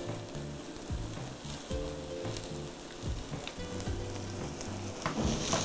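Shredded savoy cabbage and other vegetables sizzling in hot coconut oil in a frying pan as they are tipped in and stirred with a wooden spoon.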